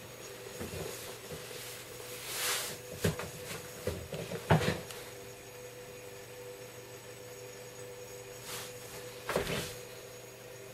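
A few sharp knocks and rustles from handling, the loudest about four and a half seconds in and another short cluster near the end, over a faint steady hum.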